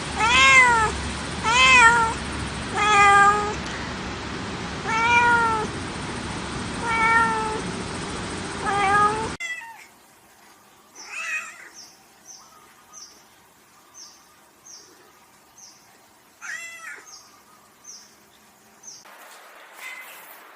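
Domestic cat meowing repeatedly: six loud meows, each rising then falling in pitch, over a steady hiss. About nine seconds in the sound cuts to a quieter recording with two more meows and a run of short, high, evenly spaced ticks.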